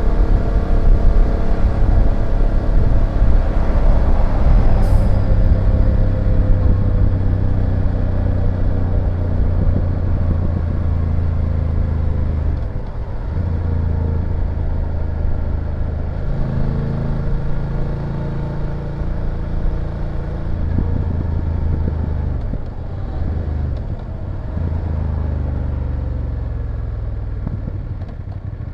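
BMW F850GS parallel-twin engine running while riding, its pitch falling slightly in the first few seconds, then dipping and coming back several times over the second half. A single sharp click about five seconds in.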